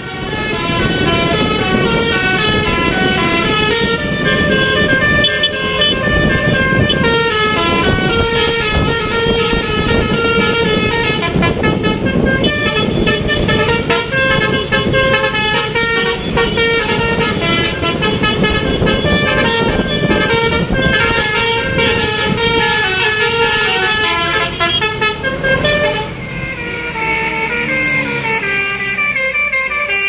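Tour-bus 'telolet basuri' musical horns playing a quick melody of short stepped notes over a steady held tone, with the bus engine and traffic running beneath. Near the end another bus's horn takes over with a different tune.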